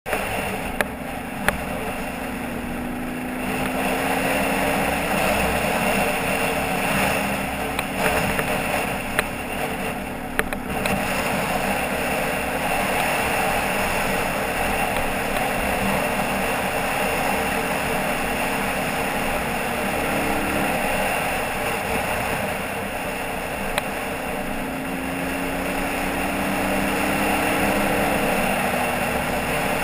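Off-road vehicle's engine running at a steady cruise over a dirt track, with a continuous noisy rush of tyres and wind. The engine pitch rises gently a couple of times, and a few sharp knocks come from bumps.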